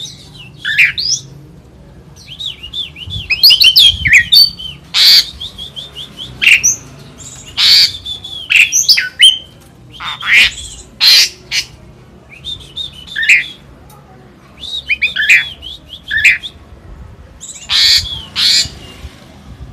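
A songbird singing loudly in short bursts of sharp whistles, quick falling and rising notes and harsh squawk-like calls, with brief pauses between phrases.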